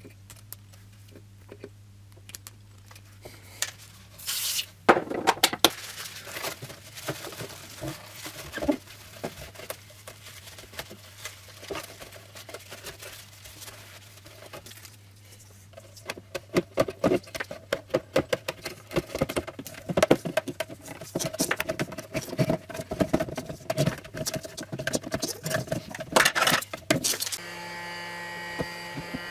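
Hands working on a headlight assembly: irregular small clicks, taps and rubbing of plastic, metal and glass parts, growing busier about halfway through, over a faint steady hum.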